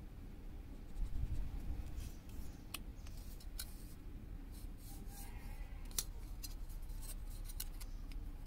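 Scattered small clicks and taps as a steel ruler is handled against a length of bare copper wire and the wire is marked with a marker pen, with a soft thump about a second in. A steady low rumble lies underneath.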